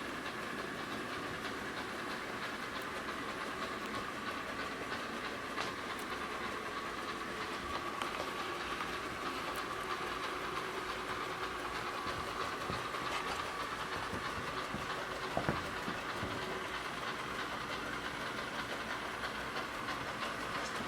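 ILIFE V5s robot vacuum running: the steady whir of its suction fan and brushes, with a faint steady tone, as it drives back toward its charging dock. A brief light knock comes about three-quarters of the way through.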